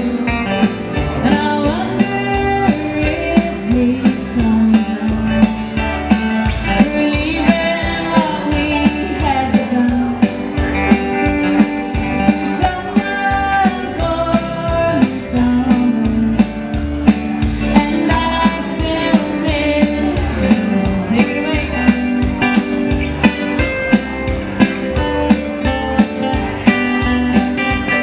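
Live band playing a song: a woman singing over electric guitars and a steady drum beat.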